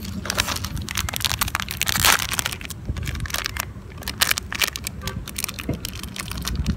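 Plastic snack packet crinkling and crackling in quick, irregular clicks as it is handled, loudest about two seconds in.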